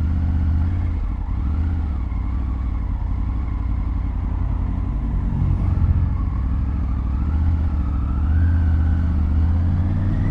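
Triumph Tiger 900 GT Pro's three-cylinder engine running steadily under way, heard from the rider's seat, with its pitch rising a little near the end.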